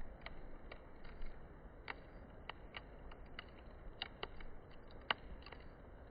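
Wood campfire crackling, with irregular sharp pops and snaps over a faint low rumble.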